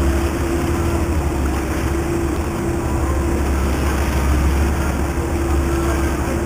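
Tour boat's engine running steadily under way: a low drone with a steady hum in it, over an even rushing noise.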